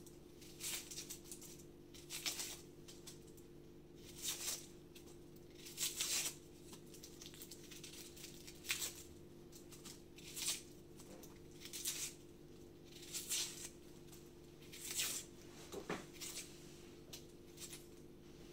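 Papery vegetable skin being peeled and torn off by hand: short, faint rustling tears about every second and a half, over a steady low hum.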